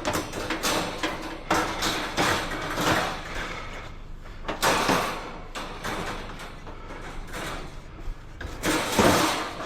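Scrap being picked up and loaded onto a trailer: an irregular series of clattering knocks and scrapes, the loudest about nine seconds in.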